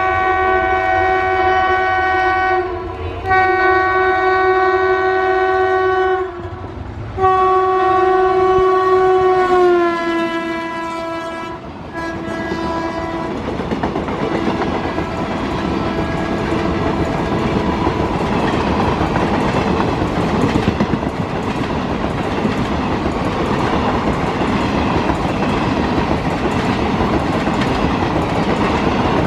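Indian Railways electric locomotive's air horn sounding three long blasts and a short fourth, the pitch dropping as the locomotive passes close by. Then the express train runs past at speed, wheels clattering over the rail joints in a steady loud rush.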